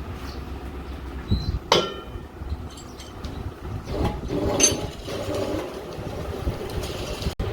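Metal parts clinking over a steady low machine rumble, with two sharp metallic clinks that ring briefly, the first about two seconds in and the second about four and a half seconds in.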